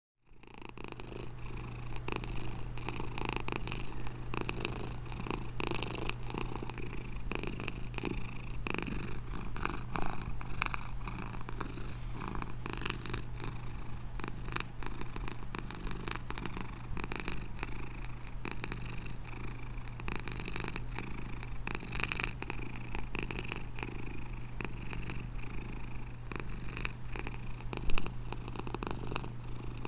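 Domestic cat purring continuously, fading in at the start, with two brief louder moments, about a third of the way in and near the end.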